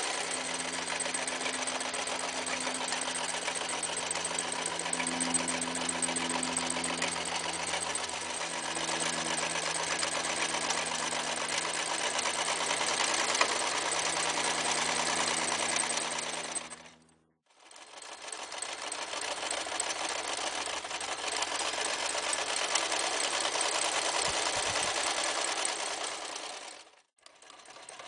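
Toyota 5001 electric sewing machine running at a steady speed, stitching through thick denim seams. It stops briefly about two-thirds of the way through, runs again, and stops once more near the end.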